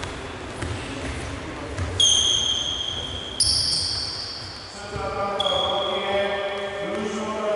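Sneaker squeaks on a wooden gym floor: high, drawn-out squeals about two seconds in and again at about three and a half seconds, after low thuds of running feet and bouncing. From about five seconds in, a sustained chant-like tone sets in and holds.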